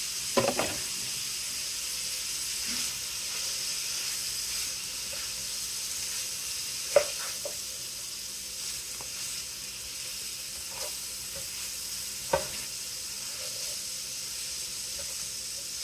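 Rice sizzling and frying in an electric skillet as it is stirred and turned with a slotted spoon. A steady hiss runs throughout, broken by a few sharp clacks of the spoon against the pan; the loudest comes about seven seconds in.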